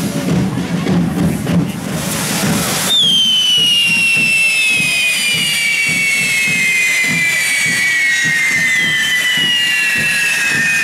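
Spark-spraying correfoc fireworks on a fire beast, with a rushing hiss. From about three seconds in, high whistles slowly fall in pitch, and a second whistle joins near the end.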